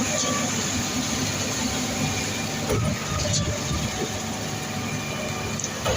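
Heavy diesel machinery of a ready-mix concrete truck running steadily while its load of concrete is discharged, with a few sharp clanks.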